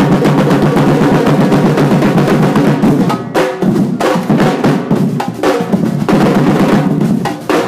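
Percussion group playing drums together: a dense, driving groove that breaks about three seconds in into separate accented hits with short gaps, before the full group comes back in near the end.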